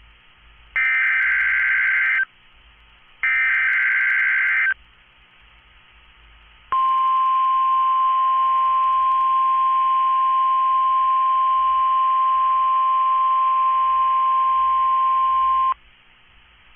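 Emergency Alert System SAME header on NOAA Weather Radio: two short bursts of buzzy digital data tones, each about one and a half seconds with a gap between. After a pause comes a steady 1050 Hz warning alarm tone, held for about nine seconds and cut off abruptly. The signal marks a required weekly test.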